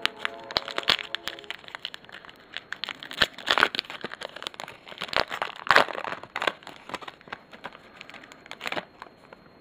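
Foil trading-card pack being torn open and crinkled by hand: an irregular run of sharp crackles and rustles, loudest twice in the middle, that stops shortly before the end.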